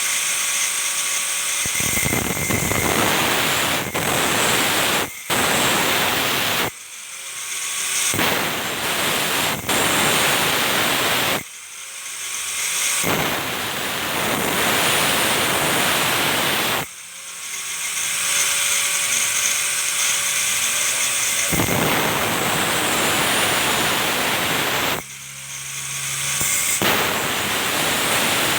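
Stick (arc) welding: the electrode arc crackles and hisses loudly in runs of a few seconds each, broken by short pauses about five times as the rod is struck and lifted.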